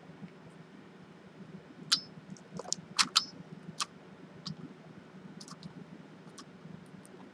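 Hot glue gun being worked at a servo pocket: a cluster of sharp plastic clicks and taps about two to four seconds in, then a few fainter ticks, over a faint steady low hum.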